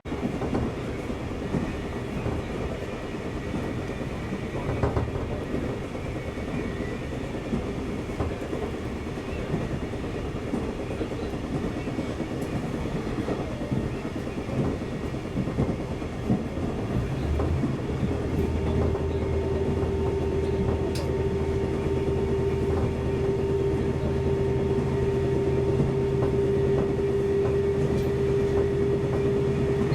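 Electric train running on the rails with a dense rumble and rail noise. About 18 seconds in, a steady motor whine comes in and holds.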